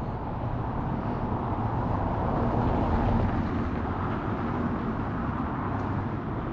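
A car driving on a cobbled street, its engine and tyre noise swelling to a peak about halfway through and then easing off, over a steady background of city street noise.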